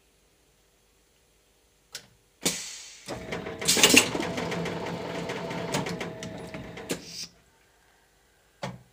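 Plastic-bottle blow-moulding machine going through a cycle as its steel mould opens and closes. It gives a click, then a sharp knock, about four seconds of hissing and rattling (loudest about a second in), and single clacks near the end.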